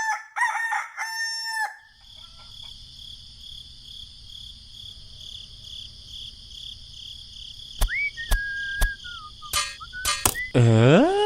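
A rooster crowing, a pitched call in several parts lasting nearly two seconds. After it comes a steady high-pitched buzz over a low hum. From about eight seconds in there are sharp clicks and sliding whistle-like tones, with a deep swooping tone at the very end.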